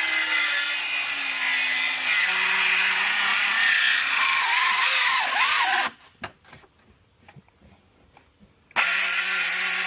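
Circular saw running and ripping lengthwise through a 2-by-8 wooden board, its pitch wavering under the load of the cut. About six seconds in the noise breaks off suddenly to near silence with a few clicks, then starts again just as suddenly about three seconds later.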